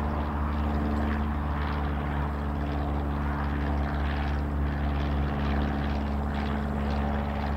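Single-engine light aircraft in flight, its piston engine and propeller droning steadily at an even pitch.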